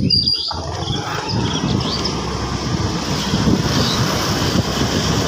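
Steady road noise of a scooter ride: the scooter's engine running with wind buffeting the microphone. Another motorbike passes close by about four seconds in.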